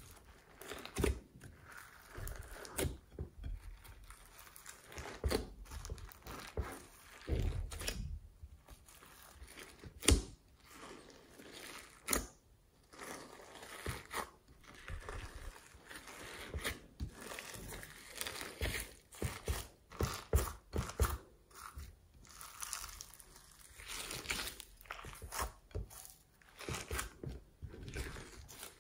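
Hands kneading and folding glossy slime mixed with foam beads and glitter: irregular wet squishing and crackling as trapped air pops, with one louder sharp snap about ten seconds in.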